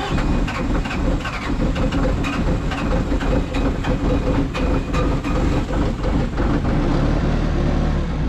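Skid steer engine catching on a cold start and then running steadily at idle, with a rough, irregular knocking clatter; it is called purring like a kitten.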